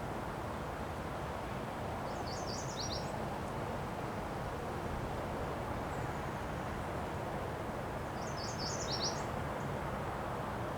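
Wind blowing in a steady rush during a windstorm. A small bird sings a short burst of quick high chirps twice, about six seconds apart.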